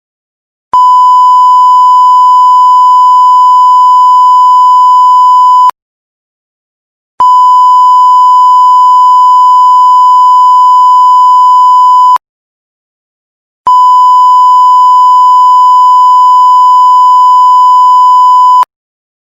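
Censorship bleep sound effect: a steady, loud, high-pitched beep tone sounding three times, each about five seconds long, with about a second and a half of silence between them.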